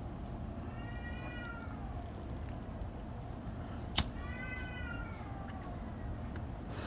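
A cat yowling: two long, drawn-out calls a few seconds apart, each rising and then falling in pitch, with a single sharp click between them. A steady thin high whine runs underneath. The listener takes the yowling for a cat in pain.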